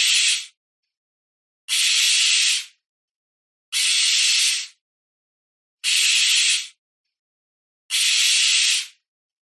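An owl hissing harshly over and over: hisses about a second long, one every two seconds, each starting abruptly and tailing off.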